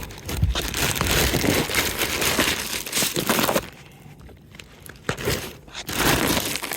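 Crinkling, rustling handling noise, as of plastic or stiff fabric being worked, with a quieter pause of about a second and a half in the middle.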